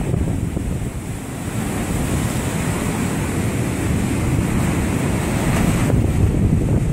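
Rough Atlantic surf, still running high after the hurricane, breaking and washing up the beach, with wind buffeting the microphone.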